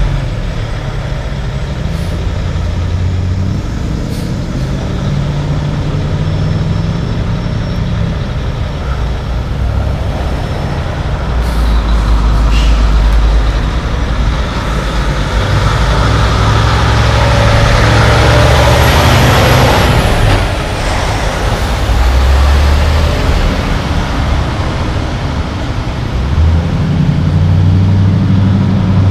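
Tractor-trailer's diesel engine idling, then pulling away under load, with a loud hiss of air brakes about two-thirds of the way through.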